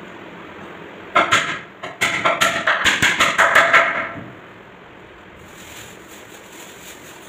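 Hammer blows on the corner joint of plywood wardrobe panels, nailing them together: one sharp knock about a second in, then a quick run of knocks for about two seconds.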